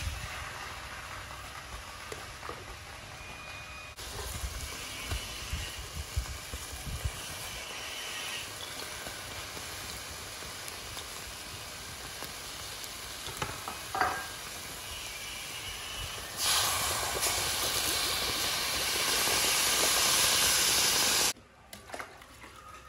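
Raw shrimp with lime leaves and salt sizzling in a hot wok over a charcoal stove, a steady hiss. The hiss grows much louder for several seconds near the end, then cuts off suddenly.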